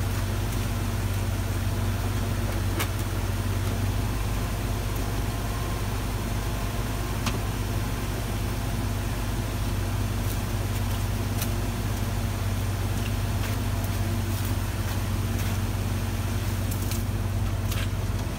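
Ford pickup truck's engine idling steadily, with scattered light clicks as the snowplow's electrical plugs are unplugged at the front of the truck.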